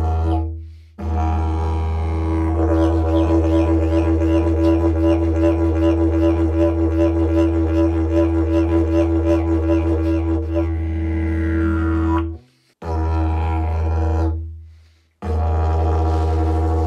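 Didgeridoo playing a deep, loud drone with a strong overtone above it, pulsed rhythmically at about three to four beats a second through the middle stretch. It cuts out briefly three times, about a second in, twelve and a half seconds in and near fifteen seconds in, and starts again each time.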